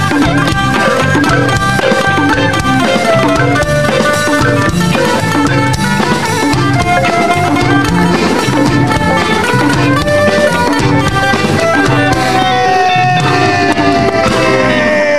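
A live band playing an up-tempo tune: several melody instruments over a steady drum beat. Near the end a long held note slowly bends down in pitch.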